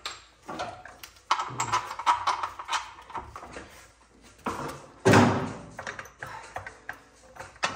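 Irregular metal knocks, clatters and scraping as a manual transmission on a floor jack is worked into alignment with the engine, with one heavier clunk about five seconds in.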